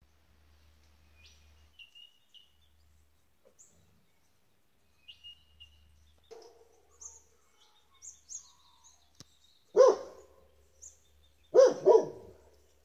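Small birds chirping faintly, then a dog barking: one bark about ten seconds in and two quick barks near the end.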